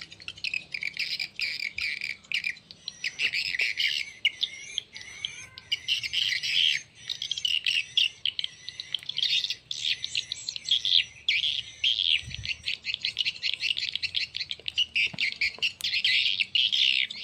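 Recorded swiftlet calls, the 'tarik senja' lure track for young swiftlets mixed with roosting (inap) sounds, played through the horn tweeters of a Piro MW-88 swiftlet sound player: dense, continuous high chirping and twittering, with piik calls that belong to the track itself.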